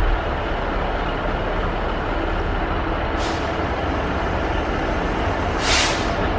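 A Class 66 diesel locomotive approaching, its two-stroke V12 diesel engine throbbing steadily. Two short hisses of air cut through, the second louder, about three and six seconds in.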